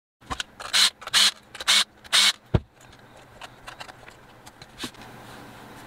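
Hands handling and fitting together the small black case of a soldering station: about five quick scrapes in the first two seconds, a dull knock, then a few light clicks.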